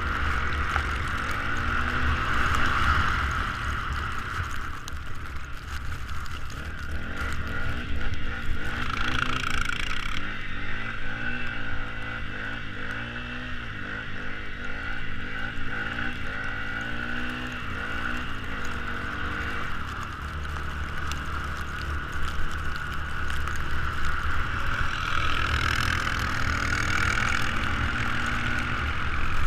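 Small off-road engine running and revving, its pitch rising and falling again and again, over a steady rushing noise.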